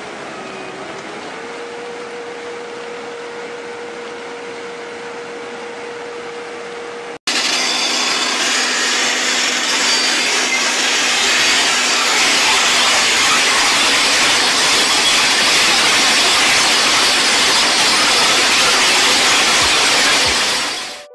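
A tracked ride-on chain trencher's engine running steadily while its digging chain cuts a trench, a steady tone that dips briefly about a second in. About seven seconds in it gives way to a large rock trencher's toothed chain grinding through stony ground, a much louder steady grinding noise.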